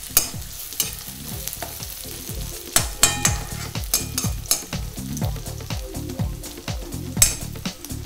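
Sliced onions sizzling in hot oil in a wok while a steel ladle stirs and scrapes through them, with scattered clicks and a few ringing knocks of the ladle on the pan. The onions are at the stage of turning soft and translucent.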